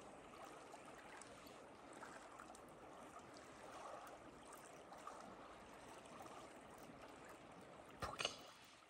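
Near silence: a faint steady hiss, with a brief short noise about eight seconds in.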